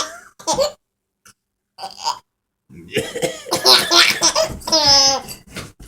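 A man's fake coughs and a baby's laughter. A short burst comes about half a second in, then a run of coughs about three seconds in, ending in a high, sustained baby laugh near the five-second mark.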